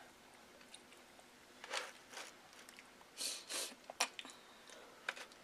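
A few soft cracks and wet squishes as a lobster shell is pried apart by hand, with one sharp snap about four seconds in.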